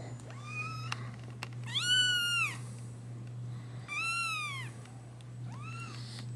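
A young black kitten meowing four times, each meow rising and then falling in pitch, the second one the loudest.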